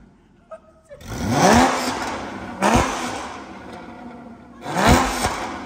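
Porsche GT4 flat-six, fitted with a modified aftermarket exhaust, revved three times from idle. Each rev climbs sharply in pitch and falls back. The first and last revs are the loudest and the middle one is a short blip.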